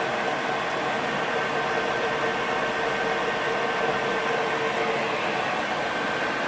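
Bernardo 165 Top Center lathe running, a steady mechanical hum with a constant whine over a noisy hiss.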